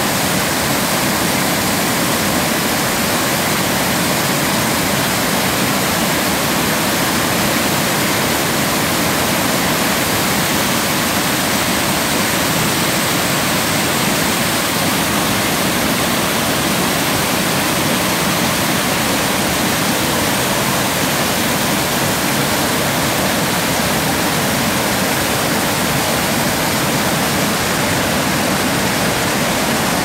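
Waterfall: white water pouring over a broad rocky ledge into a creek, a loud, steady rush with no let-up.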